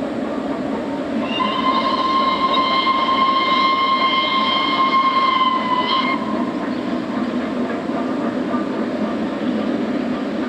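Steam whistle of LNER K1 2-6-0 locomotive 62005 sounding one long steady blast, starting about a second in and lasting about five seconds, over the steady noise of the train on the move.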